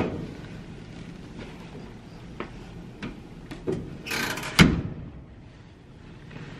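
Clothes being handled and rustled, with a loud knock right at the start, a few light clicks, and a sharp thud about four and a half seconds in.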